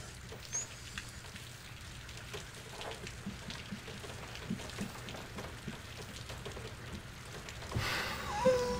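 Steady rain falling, a soft even hiss dotted with small taps. Near the end comes a brief louder sound with a short wavering pitch.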